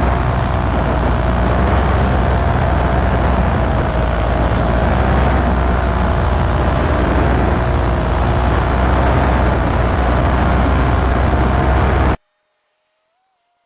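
Paramotor engine and propeller running steadily, its pitch wavering slightly, under heavy wind noise on the microphone; it all cuts off abruptly about twelve seconds in.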